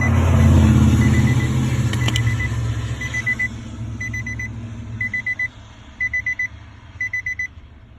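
Nissan Altima's warning chime beeping in quick high bursts of about four beeps, repeating once a second. Under it, a loud low rumble fades away over the first few seconds, and there is a click about two seconds in.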